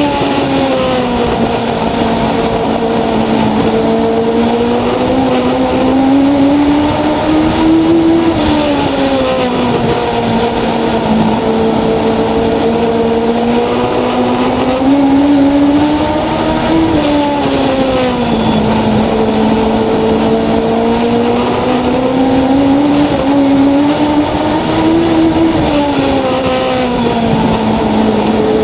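Legend car's Yamaha motorcycle engine heard on board at racing speed. Its pitch climbs steadily along each straight and drops sharply as the driver lifts for the turns, three times over.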